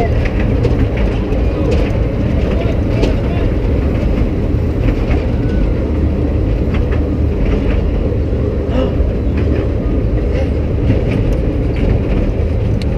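Kiddie train ride car running along its track: a steady, heavy rumble with scattered clicks and rattles from the car.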